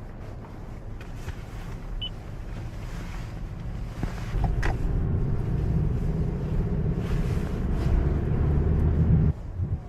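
Cabin noise inside a moving Toyota Corolla: a steady low rumble of engine and tyres. It grows louder about halfway through and drops away suddenly just before the end.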